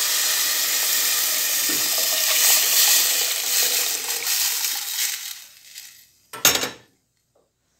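Cold water poured in a steady stream into a stainless steel pot of fried red lentils and onion, fading out about five to six seconds in as the pour ends. A short, loud knock follows about six and a half seconds in.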